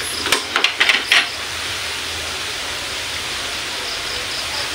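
Squid balls deep-frying in a wok of hot oil: a steady sizzling hiss, with a few sharp clicks in the first second or so.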